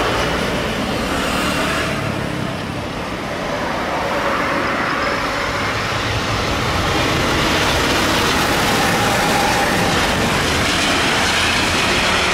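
Jet engines of an Airbus A320-232 (IAE V2500 turbofans) during touchdown and landing rollout: a steady rushing roar that grows louder about halfway through and stays loud.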